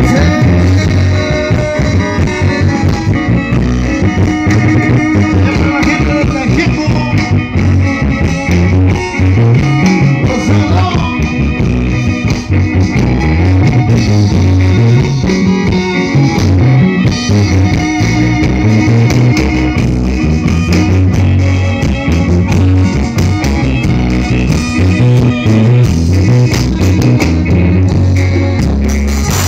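Live band playing loud amplified dance music through a PA system, with guitar and a steady pulsing bass beat.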